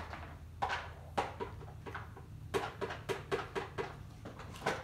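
A quick run of sharp clicks and clatters on a tile floor as a stainless steel bowl is set down among cats eating dry kibble from plastic bowls.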